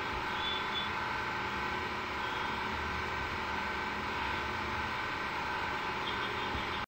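Steady background hiss with a low hum, unchanging throughout: the noise floor of the room where the narration is recorded, with no speech.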